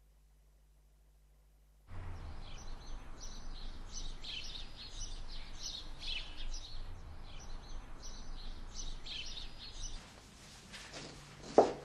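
Birds chirping in short repeated calls over a faint steady hiss, after about two seconds of near silence. Near the end, a single sharp knock.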